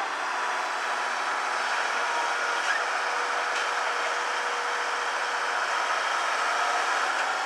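Engine of a 1985 Hitachi UH07 hydraulic excavator running steadily, with a faint held tone through it.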